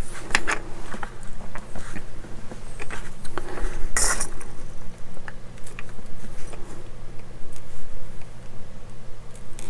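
Scattered small clicks and taps of a small screwdriver, tiny screws and plastic model-kit parts being handled, with a sharper click about four seconds in. A low steady hum lies underneath.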